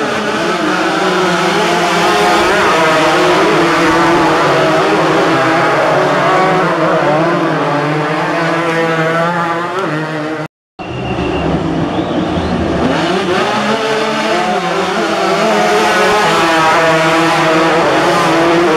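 Several motocross dirt bikes racing, their engines revving up and down over one another, cut off by a brief silent gap about halfway through.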